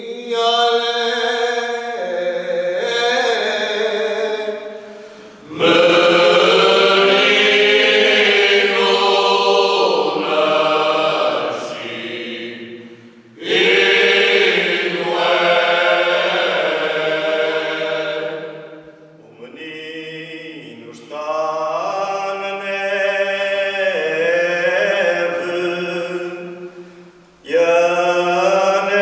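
Cante alentejano: an all-male folk choir singing unaccompanied in slow, drawn-out phrases. Each phrase starts quieter and then swells as the full group comes in suddenly louder, several times over.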